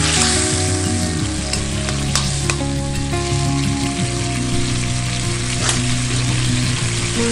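Food frying in a hot pan: a steady sizzle, with a few light clicks. Soft background music with held low notes plays underneath.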